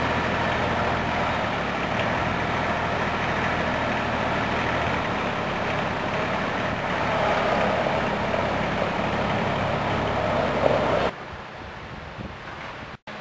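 Small forklift's engine running steadily as it carries a pallet of sod, a little louder for a few seconds past the middle. The engine sound cuts off abruptly near the end, leaving faint wind noise.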